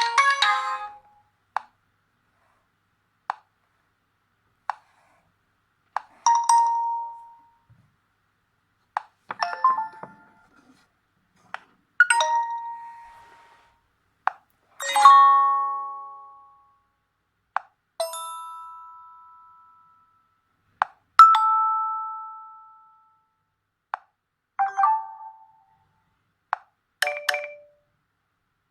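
Nokia G20 preset tones played one after another through the phone's speaker. A musical ringtone cuts off about a second in, then come about eight short chimes and dings, each a few bright notes that ring and fade over a second or two. Each chime is led by a short click, and a few lone clicks come before the first chime, with silent gaps between them all.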